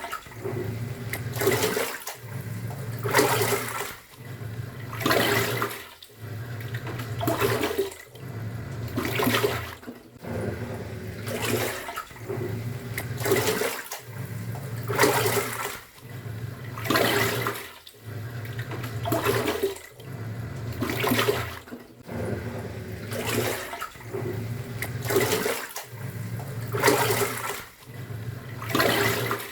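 Top-loading pulsator washing machine agitating a load: the motor hums and reverses about every two seconds, each stroke churning a surge of sloshing water, in a steady back-and-forth rhythm.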